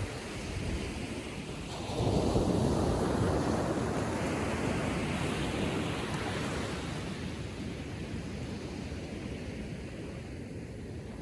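Small ocean waves breaking on a sandy beach: one wave breaks about two seconds in and its wash then slowly fades.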